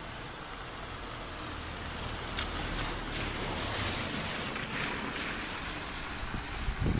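Outdoor wind noise: a steady hiss that swells in the middle, with a few low bumps of wind on the microphone near the end.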